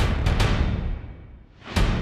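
Dramatic soundtrack music with a deep boom dying away over about a second, then a second boom near the end.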